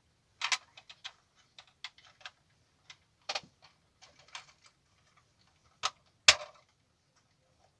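Irregular small plastic clicks and taps as the front piece of a WPL B-24 GAZ-66 RC truck model's plastic cab is handled and pressed into place, the loudest a sharp snap about six seconds in.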